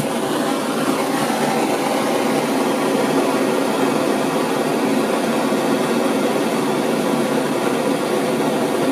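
Handheld gas blowtorch burning with a loud, steady hiss.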